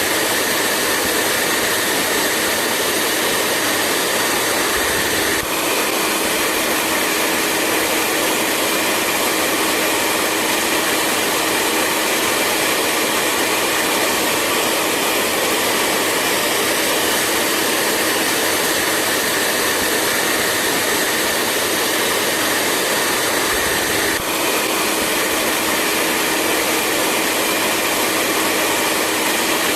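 Hair dryer running steadily: a constant rush of air with a low hum. There are two brief dips, about five seconds in and near the end, where the tone shifts slightly.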